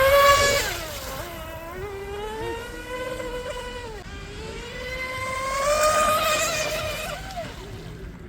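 Small electric RC speedboat's brushless in-runner motor and propeller on a 4S battery, running at speed with a high-pitched whine that rises and falls in pitch as the boat passes and turns. It is loudest about a second in and again around six seconds in, then fades away near the end.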